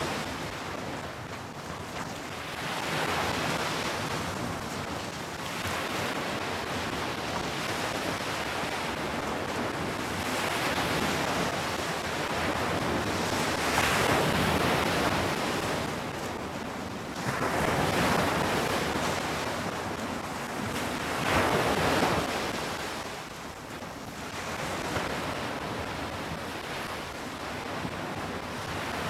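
Sea waves breaking and washing up a sandy beach, the surf swelling and falling every few seconds.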